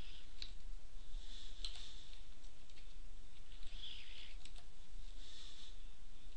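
A few computer keyboard keystrokes, spaced irregularly, as numbers are typed in, over a steady low hum.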